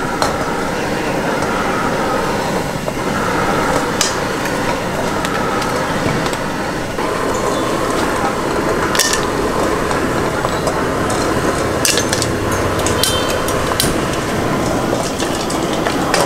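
Metal utensils and a wok clinking sharply several times, from about four seconds in, over a steady loud roar. Voices run underneath during the first half.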